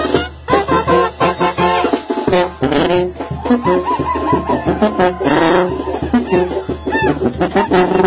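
Banda brass band playing live at close range: trumpets and trombones carry the tune over a pulsing sousaphone bass.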